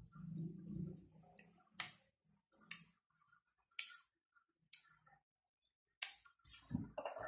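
Yardlong beans snapped into pieces by hand: five crisp snaps about a second apart. Softer rustling of the bean bundle comes at the start, and a dull rustle and knock near the end.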